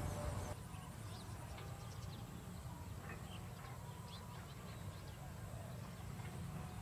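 Outdoor ambience: scattered short bird chirps over a low, steady rumble, a little quieter after about half a second in.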